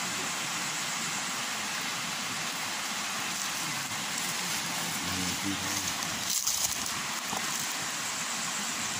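Steady rush of river water flowing over rocks, with a faint voice about five seconds in and a short clatter a little after six seconds.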